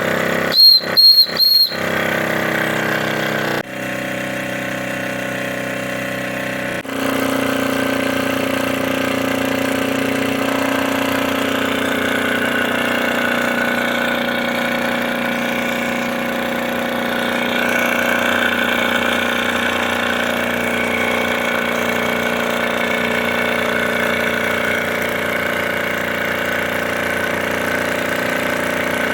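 Steady machinery drone made of many fixed tones, changing abruptly about 4 and 7 seconds in. Three short high beeps sound about a second in.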